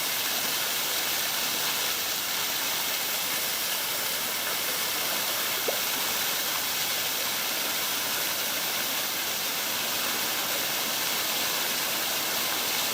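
Ironbark Falls, a small cascading waterfall, splashing steadily in a continuous even rush of falling water, its flow modest for want of rain. One brief tick about halfway through.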